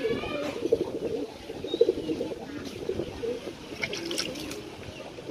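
Domestic pigeons cooing again and again. About four seconds in, water splashes and trickles as a pigeon held in the hand is dunked and washed in a bucket.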